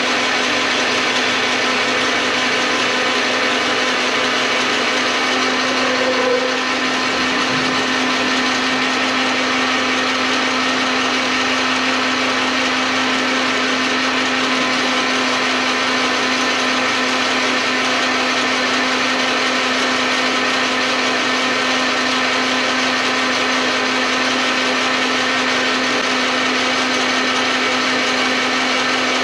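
Metal lathe running steadily, its motor giving a constant hum under an even whirring noise.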